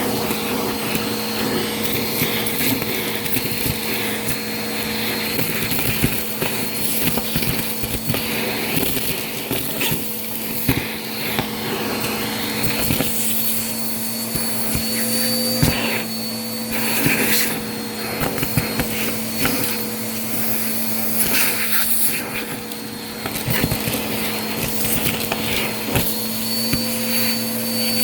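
Vacuum cleaner running steadily, a constant motor hum with a high whine over the rush of air, peppered with frequent crackling clicks as crunchy debris is sucked up.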